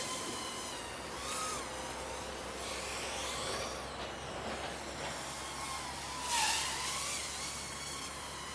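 Micro brushless FPV quadcopter's motors and propellers whining at a distance, the thin tone rising and falling in pitch as the throttle changes. It swells briefly about six seconds in.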